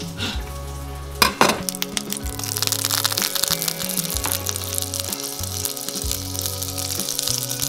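King salmon heart frying in foaming butter in a cast-iron skillet: a sharp burst about a second in, then a steady crackling sizzle. Background music plays under it.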